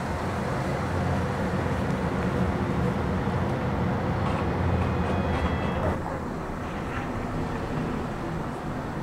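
Street traffic: a motor vehicle's engine rumbling steadily close by, louder for the first several seconds and dropping away about six seconds in.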